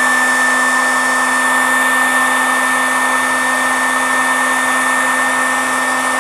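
Electric heat gun running steadily, a high motor whine over the rush of hot air, shrinking heat-shrink tubing over freshly spliced wires.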